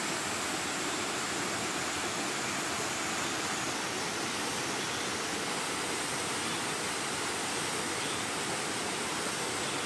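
Mountain stream water rushing steadily, an even hiss with no breaks.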